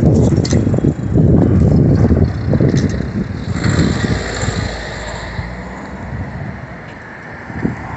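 Wind buffeting the microphone with a fluttering low rumble, while street traffic swells into a hiss about halfway through and fades away.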